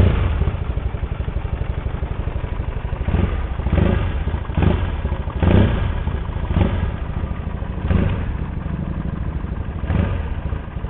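Kawasaki Estrella RS 250's air-cooled single-cylinder engine idling, revved with a series of short throttle blips.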